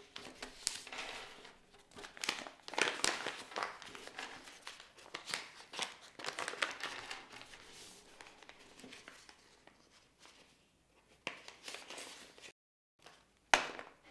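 Sheet of paper rustling and crinkling as it is folded and creased by hand on a wooden tabletop, in irregular strokes. Near the end, after a brief silence, a single sharp tap.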